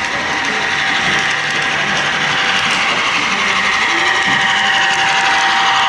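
HO scale GP38-2 model locomotive running along the track, its motor and gearing whirring steadily.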